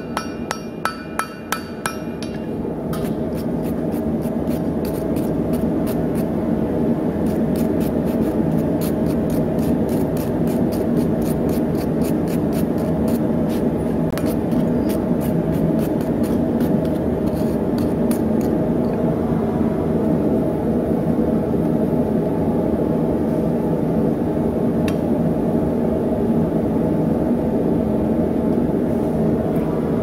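Hand hammer striking red-hot damascus steel on an anvil: quick ringing blows at first, then a steady loud low drone with lighter blows about three a second that stop about two-thirds of the way in.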